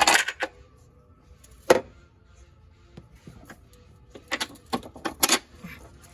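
Metal clanks and clinks of hand tools and suspension parts being handled: a loud clank at the start, another about two seconds in, and a cluster of sharper clinks near the end.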